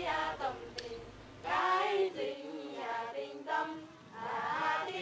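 A chorus of young women singing a hát dô folk song together without instruments, in phrases of held, wavering notes that grow clearer after about a second and a half. A single sharp click sounds about a second in.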